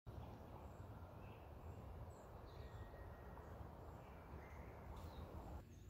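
Faint outdoor ambience: a steady low rumble and hiss with scattered faint bird chirps. Most of the background hiss cuts off suddenly near the end.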